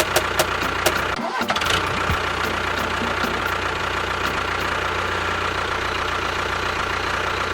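Small motor of a DIY miniature tractor or bulldozer running. It clicks rapidly through the first second, then settles into a steady whining hum after a brief break.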